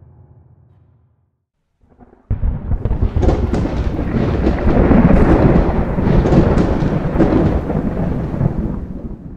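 Thunder-like rumbling sound effect of a production logo sting. It starts suddenly about two seconds in after faint music fades, runs loud with sharp cracks through it, and cuts off abruptly at the end.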